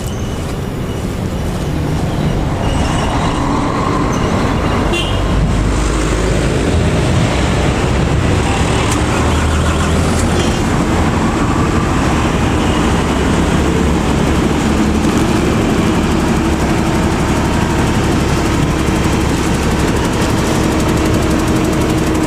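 A heavy truck engine running close by, building up over the first couple of seconds and then holding steady.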